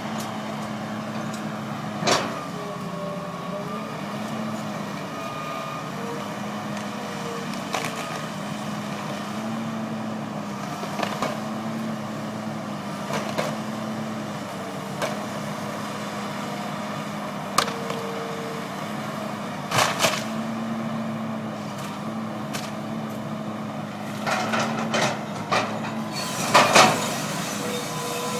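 A large engine running steadily at a slightly wavering speed, like a truck's engine driving tree-work equipment. Sharp knocks come now and then, with a run of clatters near the end.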